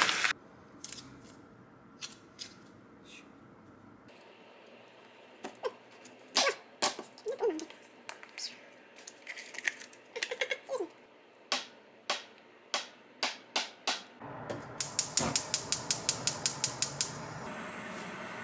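Food prep on a kitchen counter: plastic food packaging crinkling and clicking as a tube of tofu is unwrapped. Near the end comes a quick, even run of knife strokes on a wooden cutting board, about six or seven a second, as the tofu is sliced into rounds.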